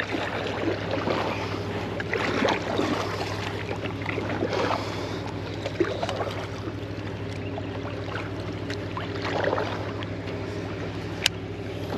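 Kayak being paddled on a river: soft water swishes from paddle strokes every couple of seconds over a steady low hum, with a sharp click near the end.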